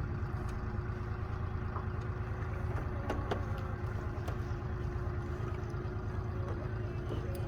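An engine running steadily at idle, a low even hum with a few faint clicks over it.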